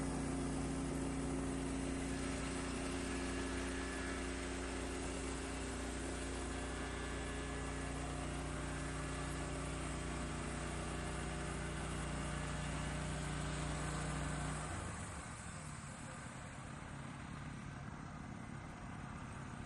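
Portable sawmill's engine running steadily, then shut off about fifteen seconds in, leaving only a faint background hiss.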